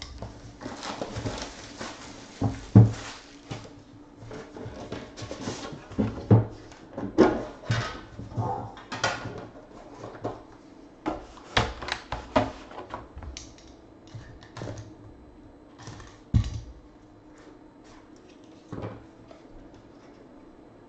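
Hands opening an Immaculate baseball card box and taking out the pack: rustling and scraping of wrap and cardboard, with irregular knocks and a heavier thud late on.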